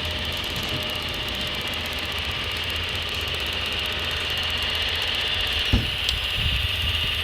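Scale RC hydraulic construction machinery running, with a steady high whine and a low hum, and a single sharp knock a little under six seconds in.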